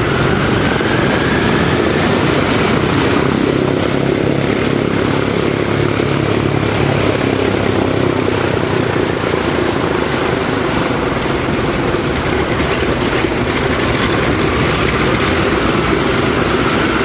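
Four Pratt & Whitney R-2800 radial piston engines of a Douglas DC-6A airliner running at taxi power as the aircraft rolls past, a loud steady propeller drone with a faint higher whine that slowly glides in pitch.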